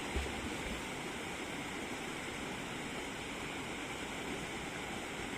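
Steady rush of flowing spring water, with a short low thump just after the start.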